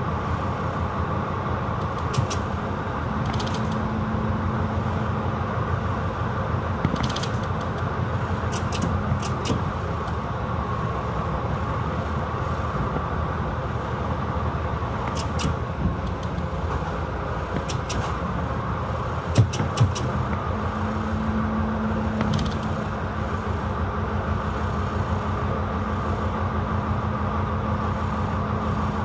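Diesel shunting locomotive's engine running steadily as it rolls slowly through a rail yard. Occasional sharp metallic clicks punctuate it, a pair of them about 19 to 20 seconds in.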